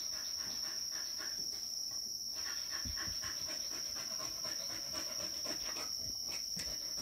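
A dog panting rapidly, in a quick even rhythm, over a steady high-pitched drone.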